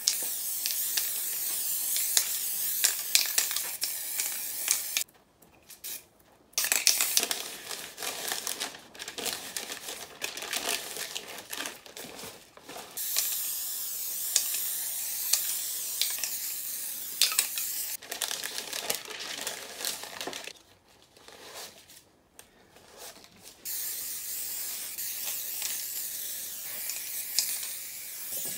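Aerosol spray paint cans hissing in repeated bursts, with short clicks among the spraying and two brief pauses, about five and twenty-one seconds in.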